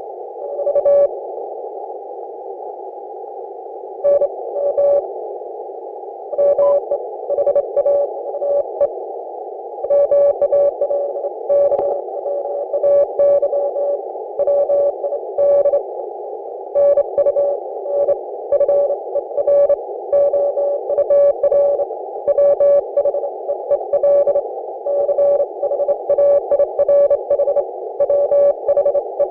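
Morse code (CW) received on an Icom IC-718 HF transceiver. A single tone is keyed on and off in dots and dashes over steady band hiss narrowed by the receiver's filter. The keying is sparse at first, with short gaps, and runs steadily from about ten seconds in.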